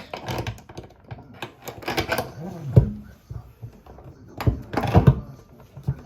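Clicks, knocks and clatter of hand work on a kitchen faucet and its under-sink fittings, with a few heavier knocks in the second half.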